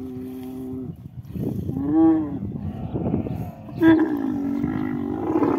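Dromedary camel moaning and grumbling as it is milked: several long, low moans with a rougher, noisier stretch between them.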